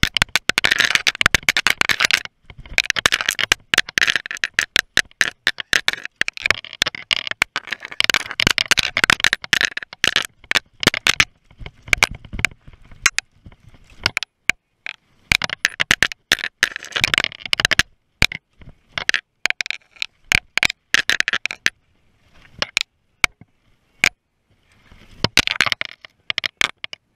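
Downhill mountain bike clattering over a rough, rocky dirt trail: a dense stream of sharp clicks and knocks with scraping tyre-on-dirt noise, coming in bursts broken by short quieter gaps.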